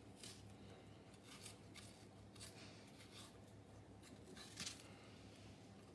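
Faint, irregular crisp scrapes of a small knife cutting the core out of a halved apple, over a faint steady low hum.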